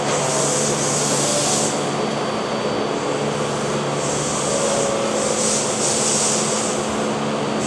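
Osaka Metro 400 series subway train standing at the platform, its onboard equipment humming steadily. A high hiss swells and fades several times over the hum.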